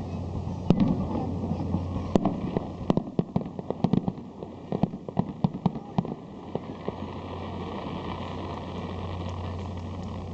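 Aerial fireworks bursting: a few single bangs, then a rapid string of sharp cracks for about three seconds. The cracks die away after about six seconds into a steady background murmur.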